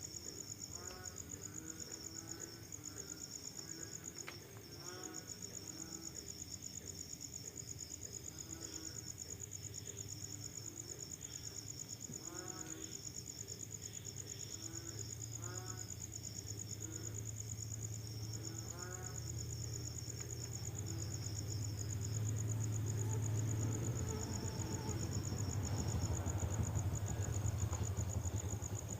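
Crickets chirping in a steady, fast-pulsed trill, with frogs calling in short repeated croaks. A low rumble builds through the second half and is loudest near the end.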